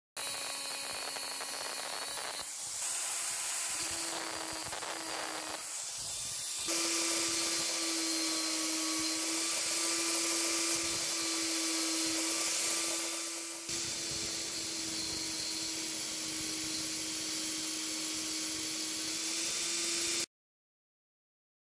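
Angle grinder running with a steady whine while its disc grinds the end of a steel bolt to a point, a loud grinding hiss over the motor. It cuts off suddenly near the end.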